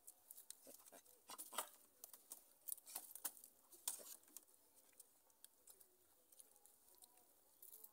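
Near silence broken by faint, scattered clicks and taps, most of them in the first half.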